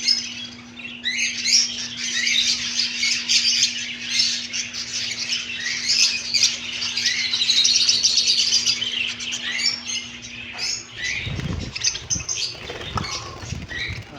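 Many small caged birds chirping and twittering all at once, a dense, unbroken chorus. A steady low hum runs under it and stops about eleven seconds in, followed by a few low thumps.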